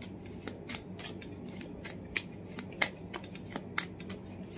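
A tarot deck being shuffled by hand: short, irregular clicks and snaps of the cards, a few a second, over a faint steady low hum.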